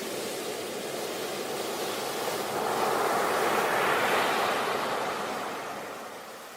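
Sea waves on a beach: a wave swells and washes in, loudest about halfway through, then draws back and fades near the end.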